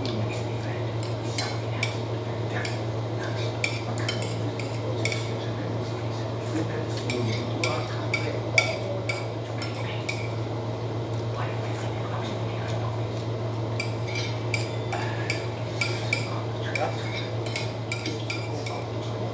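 Spoon and fork clinking and scraping on a plate while eating, many small sharp clicks at irregular intervals, over a steady low hum.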